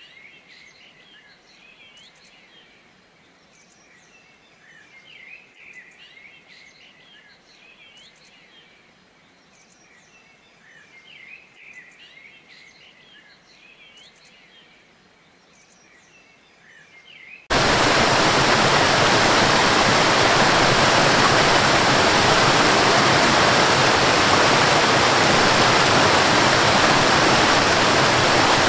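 Soft bird chirping over a faint hush, then an abrupt switch, a little past halfway, to the loud, steady rush of a waterfall cascading over rocks.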